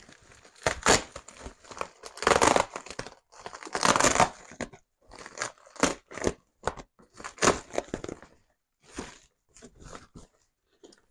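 A large bag being torn open and its packaging rustled: a run of irregular ripping and crinkling bursts, the longest about two and four seconds in, then shorter crinkles.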